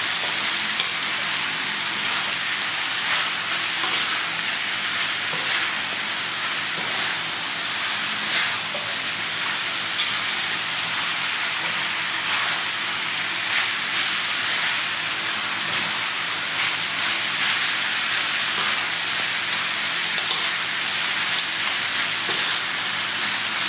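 Pork ribs, lemongrass, chillies and greens sizzling steadily in a hot pan as they are stir-fried. A metal spatula scrapes and knocks against the pan every few seconds.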